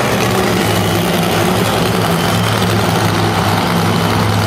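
Monster truck engine running loud and steady, a constant low drone that holds one pitch.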